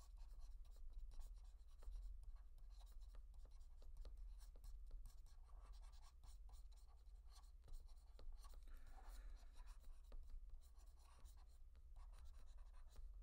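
Faint scratching and tapping of a pen stylus on a drawing tablet as a figure is sketched, in quick irregular strokes, over a steady low hum.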